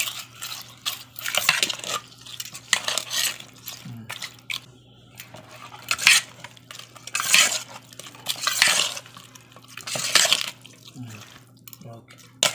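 Steel ladle stirring curd rice in a stainless-steel bowl: repeated scraping and clinking of metal on the bowl, about one stroke a second or a little slower. A steady low hum runs underneath.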